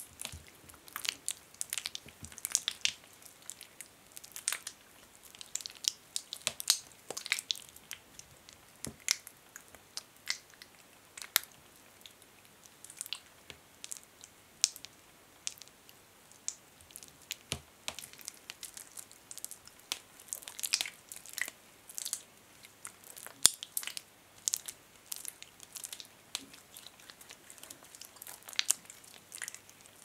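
Hands rubbing and squeezing thick hand lotion between the palms and fingers, making irregular wet, sticky crackles and smacks several times a second. A few sharper smacks stand out, one near the middle and one about three quarters of the way through.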